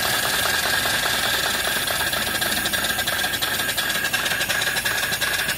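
Homemade single-cylinder vertical steam engine, 3-inch bore by 3-inch stroke, running on steam from a boiler: a fast, even chuffing beat over a steady hiss of escaping steam.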